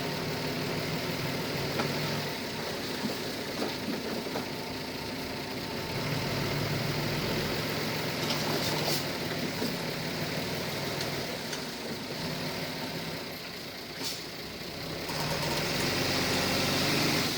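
Diesel engine of heavy earthmoving machinery running steadily, its note swelling and easing under changing load and growing louder over the last couple of seconds.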